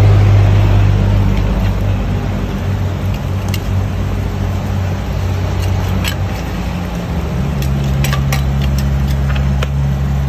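A motor vehicle engine running with a steady low hum that shifts in pitch about seven seconds in. Over it, a serving utensil clicks and clinks lightly against containers and a plastic bag several times in the second half.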